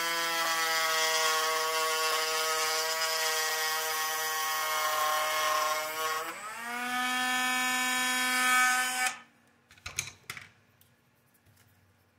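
Dremel rotary tool grinding away material from a small buggy part to clear the tie rod. It runs with a steady high whine, its pitch dips and then climbs about six seconds in, and it is switched off about nine seconds in, followed by a few clicks.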